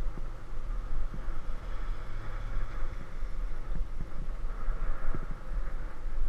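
Wind buffeting the microphone of a handlebar-mounted camera while riding, an uneven low rumble that rises and falls, with a steady rush of air and road noise over it.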